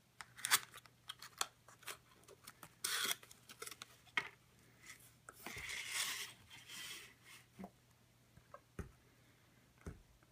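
Cardboard box and paper sleeve crinkling and scraping as a football is pulled out of its packaging, with many sharp crackles, then a longer rustling scrape. A couple of soft thumps near the end as hands handle the ball.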